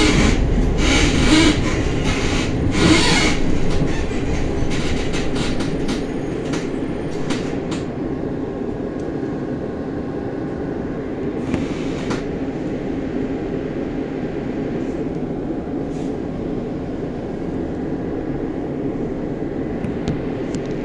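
2003 Iveco tram, heard from inside the car. Its wheels clatter over the rails for the first few seconds as it slows, then it comes to a stop. While it stands, a steady low hum of its equipment remains, with a short hiss about twelve seconds in.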